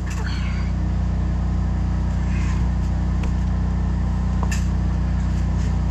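Steady low machine hum with a few faint clicks and taps over it.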